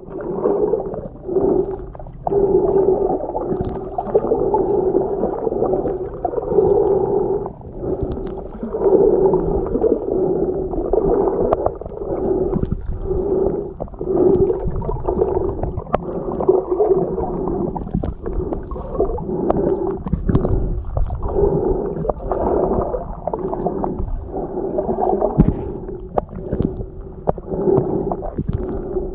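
Muffled underwater sound of a snorkeler swimming, picked up by a submerged camera: a dull, low hum of moving water that swells and fades about once a second with the swimming strokes.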